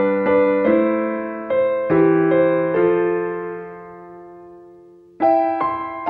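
Background piano music: a gentle phrase of struck notes that ring and fade, then a chord left to die away, with two new notes struck near the end.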